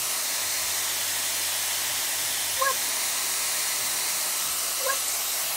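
Dyson Airwrap hair styler with its round brush attachment running, blowing air in a steady hiss. Two short high squeaks cut in, about two and a half seconds in and again near the end.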